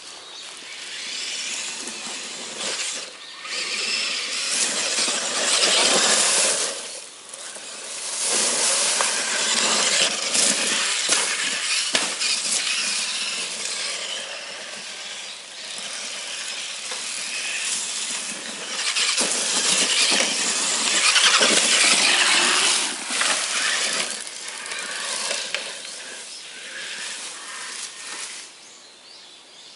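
Traxxas E-Maxx electric RC monster truck running across grass: the high-pitched whine of its electric motors and drivetrain, swelling and fading several times as it speeds up and slows.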